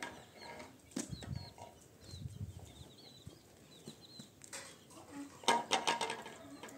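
Birds chirping faintly with scattered knocks, then a burst of clattering about five and a half seconds in.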